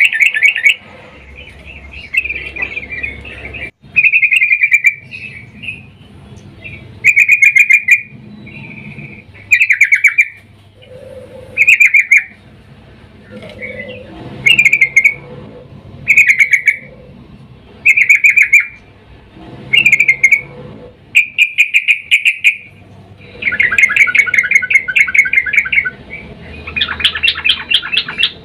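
Female sooty-headed bulbul (trucukan) calling in short bubbly phrases about every two seconds, breaking into a longer run of quick chattering notes near the end. It is a female's call to a male, used as a lure to set male bulbuls singing.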